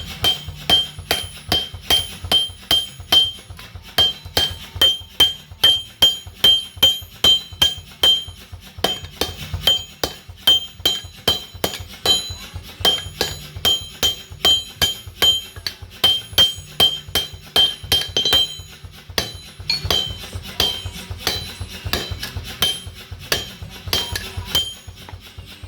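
Hammers striking hot metal on an anvil in a fast, steady rhythm of several blows a second, each blow ringing brightly. There is a short break in the rhythm a little after the middle.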